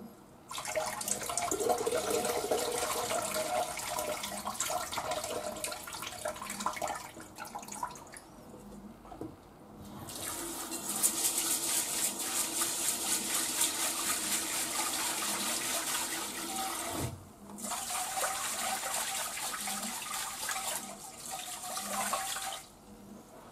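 Kitchen tap running into a rice cooker's inner pot while rice is washed by hand. The water breaks off briefly twice, around 9 s and 17 s, and stops near the end as the rinse water is poured off.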